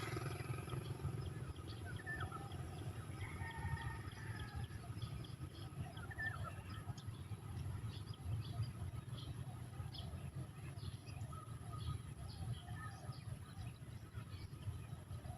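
Birds chirping on and off over a steady low rumble, with many short, high ticking calls throughout.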